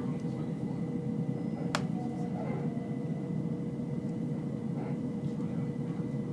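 Electric passenger train running, heard from inside the carriage: a steady low rumble with a faint steady hum over it. One sharp click about two seconds in.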